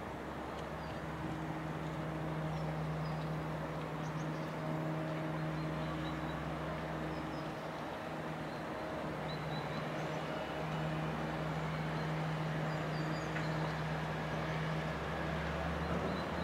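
Diesel engine of a laden inland motor cargo ship running steadily as the vessel passes at slow speed: a low, even drone that eases briefly about halfway through. Small birds chirp faintly over it.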